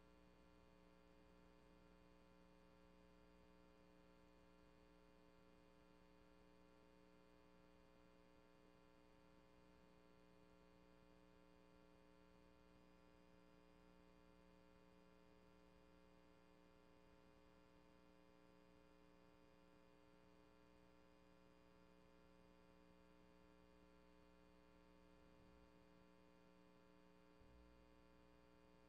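Near silence: only a faint, steady electrical hum on a dead audio track, with a faint low bump near the end.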